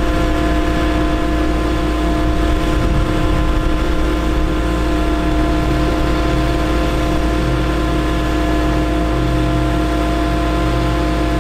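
Caterpillar C7 diesel engine of a bucket truck running steadily to drive the hydraulic pump for the Hi-Ranger boom, with a steady whine over the engine's rumble as the boom moves.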